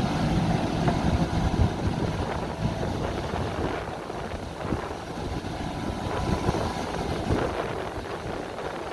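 JCB backhoe loader's diesel engine running under work, with scattered short knocks from the machine.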